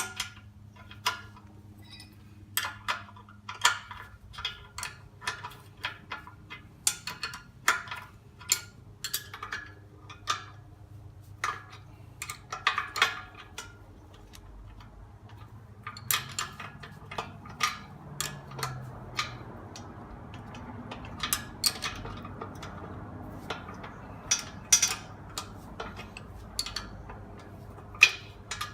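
Wrench working a 9/16-inch bolt on a compact tractor's backhoe: irregular sharp metal clicks, often in quick clusters, with a faint steady hiss underneath from a little past halfway.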